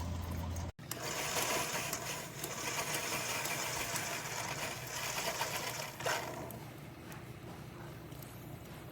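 Single-serve coffee maker brewing: its water pump running with a hiss as hot water is pushed through. The sound eases off about six seconds in.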